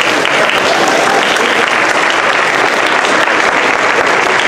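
Theatre audience applauding: many hands clapping in a dense, steady wash.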